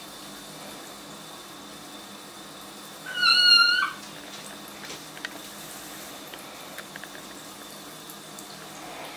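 A young kitten gives one high-pitched meow about three seconds in, lasting under a second and dropping in pitch at the very end.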